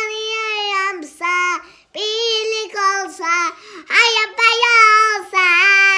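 Young girl singing a song into a toy karaoke microphone, in long held notes split into several phrases with short breaths between.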